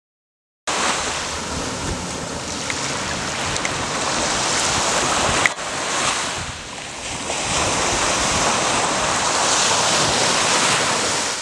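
Small sea waves breaking and washing up on a sandy beach, a steady surf wash that starts about half a second in, with a brief dip a little past the middle.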